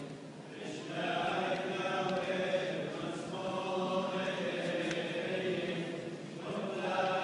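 Liturgical chant sung in a church, long held notes in phrases of a few seconds with short pauses between.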